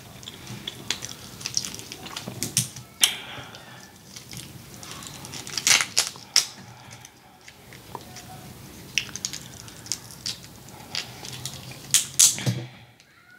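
Large shell-on shrimp being peeled and pulled apart by hand: the shell crackles and snaps in a series of sharp clicks, loudest about three, six and twelve seconds in, with wet chewing and lip-smacking.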